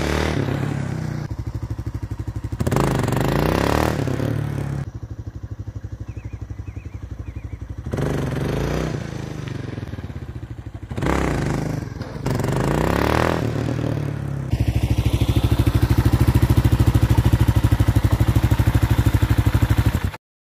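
Suzuki dual-sport motorcycle engine revving hard in several separate bursts of throttle as the rider tries for wheelies, the pitch sweeping as the bike passes. About two-thirds of the way in, it settles into a steady, loud idle close by with an even pulse, which cuts off abruptly near the end.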